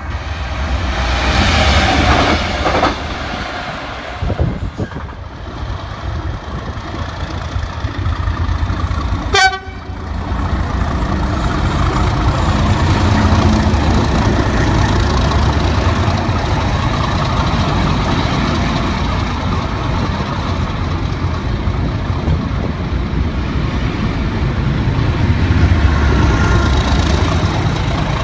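Diesel freight locomotives passing on the rails, with steady engine rumble and wheel noise. A GBRf Class 66 runs through with a horn sounding about a second or two in. After a sudden cut about nine seconds in, a Class 37 locomotive's engine runs as it passes and arrives.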